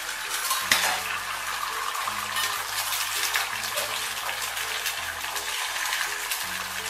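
Beaten egg hitting a hot nonstick frying pan and sizzling, starting suddenly as it is poured in and going on as a steady hiss while the pan is tilted to spread it. A single sharp knock comes near the start.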